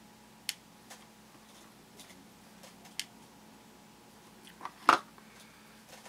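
A few scattered small plastic clicks and taps as Pixos beads are picked up and set into the bead template, with the loudest pair of clicks just before the end.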